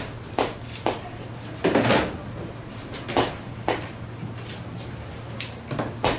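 A black mallet knocking on the back of a long knife blade, driving it down through a large Spanish mackerel's backbone into the cutting board. About eight dull knocks at an uneven pace, some in quick pairs and a short cluster about two seconds in.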